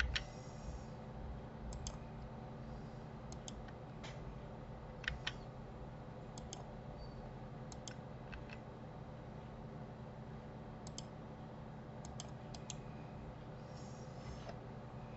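Faint, scattered clicks of a computer mouse and keyboard, a dozen or so, many coming as quick double ticks, over a low steady electrical hum.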